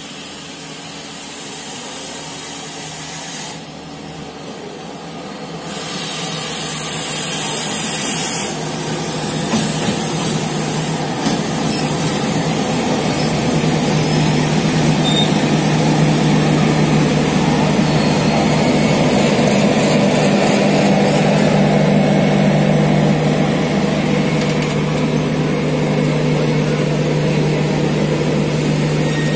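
A passenger train led by a WDM-3A ALCO diesel locomotive arriving on the adjacent track. The locomotive's engine grows louder as it comes up and passes, then the coaches roll by with a steady hum and running-gear noise.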